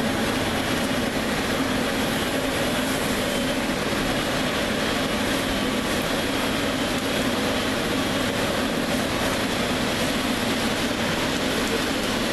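Steady noise of a taxiing Emirates wide-body airliner's jet engines close by, heard through window glass, holding an even level with no rise or fall.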